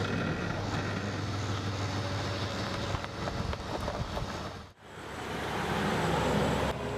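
Jeep Grand Cherokee engine running with a steady low hum; then, after a sudden cut about two-thirds of the way in, the SUV pulling away and driving past, its engine and tyre noise growing louder before stopping abruptly near the end.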